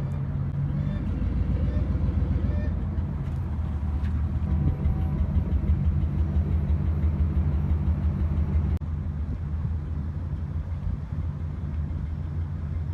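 A motor vehicle running on the road, a steady low rumble of engine and road noise. The sound cuts abruptly to a slightly quieter rumble about nine seconds in.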